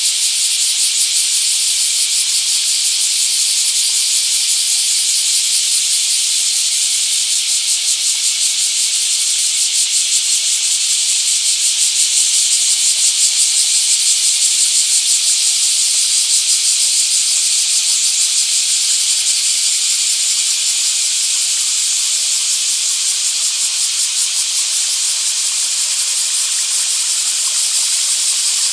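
Flowing water of a small stream, a steady high hiss with no breaks.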